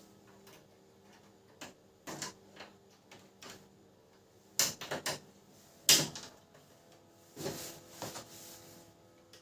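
Hard plastic printer parts being handled and fitted together: scattered sharp clicks and knocks, the loudest bunched in the middle, then a short scraping rustle near the end.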